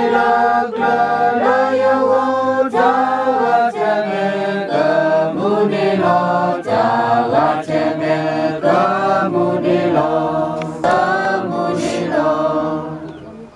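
A group of voices singing together without instruments in a slow, chant-like melody, each note held for about half a second; the singing dies away near the end.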